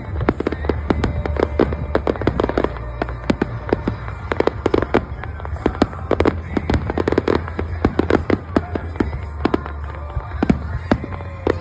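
Aerial fireworks display: a dense, irregular run of bangs and crackling pops, many shells going off close together.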